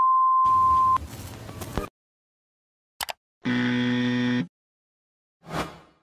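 A steady, high single-tone censor bleep lasting about a second, followed by a short burst of hiss. After a pause comes a click, then a low electronic buzz of about a second as a TV-static glitch effect, and a short whoosh near the end.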